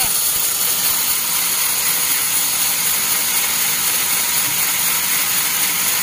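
Band sawmill blade cutting through a teak log, a steady dense mechanical noise that holds without a break.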